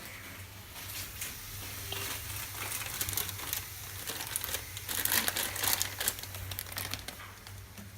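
Plastic packet crinkling and rustling as it is handled, in irregular bursts that are loudest about five seconds in.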